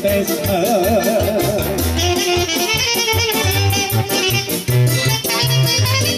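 Live Romanian folk dance music played by a small band: a saxophone-led instrumental melody over a keyboard or accordion accompaniment, with a steady bass-and-drum beat. The melody line moves up into a higher register about two seconds in.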